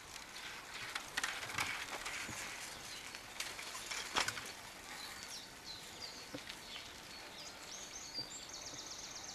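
Child's bicycle rolling over a dirt and gravel path close by, tyres crackling with scattered clicks, then fading as it moves off. Birds sing in quick high chirps over the second half, with a fast run of repeated notes near the end.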